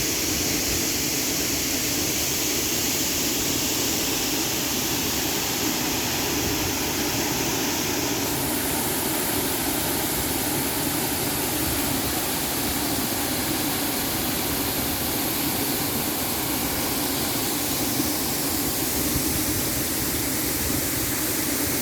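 Waterfall: water falling steadily, a continuous even noise with no breaks. The high hiss shifts in tone about eight seconds in.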